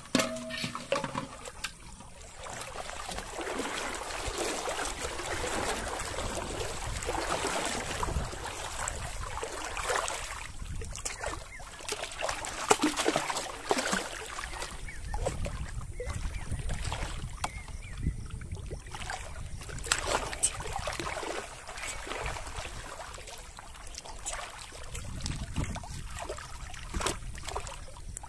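Pond water sloshing and splashing as a person wades chest-deep through it, with many small irregular splashes.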